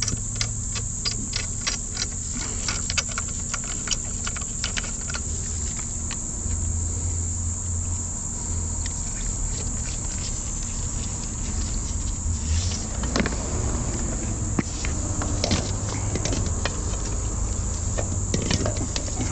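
High-pressure drain jetter running: a steady low engine hum under a constant high-pitched hiss, with a run of quick clicks in the first few seconds and scattered knocks later.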